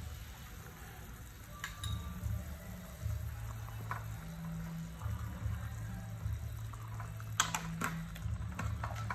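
Pot of vegetable soup boiling, with a low bubbling rumble, while a metal ladle stirs it. Near the end there are a few sharp clinks of the ladle against the metal pot.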